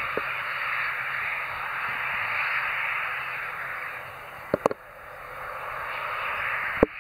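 ATR 72-500 turboprop's engines and propellers making a steady rushing noise as the airliner slows on the runway after touchdown, easing a little just past the middle and then building again. A few sharp knocks come near the middle and just before the end.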